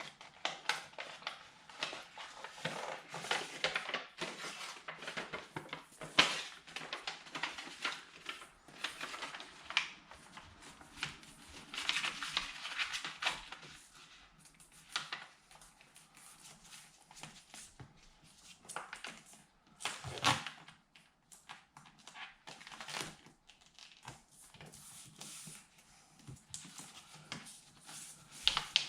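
Crinkling and rustling as the backing paper is peeled off Noico adhesive foam insulation and the foam is pressed and rubbed onto a plastic car door panel. There are scattered clicks and a couple of sharper knocks.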